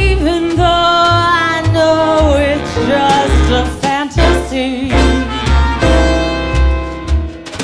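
Jazz ensemble playing a swing tune: an alto saxophone carries the lead melody, bending and wavering in pitch, over upright bass notes and piano.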